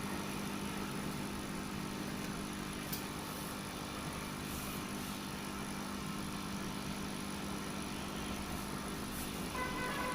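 Sunsun CT-202 diaphragm air pump running together with the aquarium's powerhead: a steady low electric hum. It is not a silent pump, measuring about 5 to 6 dB above the powerhead alone.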